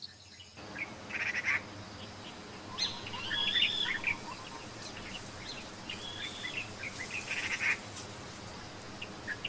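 Birds calling: scattered short chirps and a few arching whistled calls over a steady outdoor hiss.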